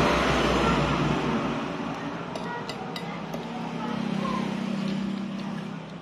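A road vehicle passing close by, loudest at the start and fading away, followed by a steady low engine hum from about halfway in that drops away just before the end. A few light clicks come in between.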